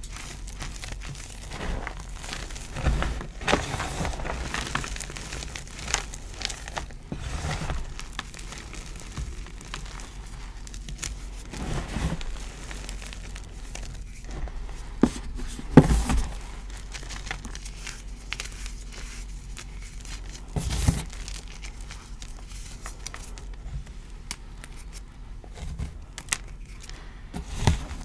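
Hands crushing and raking through dyed gym chalk: crunchy lumps breaking and powder shifting in irregular crunches. A few sharper, louder crunches stand out, the loudest about halfway through.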